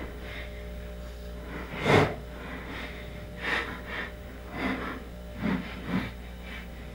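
Screwdriver and hand handling noises as the mini freezer's vented rear cover panel is fastened back on: about five short sounds over a steady low hum, the loudest about two seconds in.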